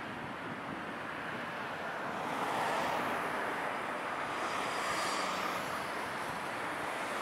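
Road traffic passing on a busy street: a steady rush of tyre and engine noise that swells about two and a half seconds in as a vehicle goes by.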